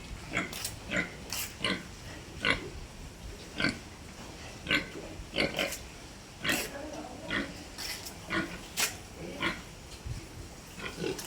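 Pig grunting in a series of about twenty short, separate calls, unevenly spaced, roughly one to two a second.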